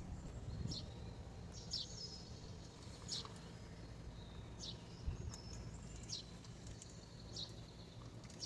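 Quiet outdoor background with short, high bird chirps repeating about once a second over a faint low hum.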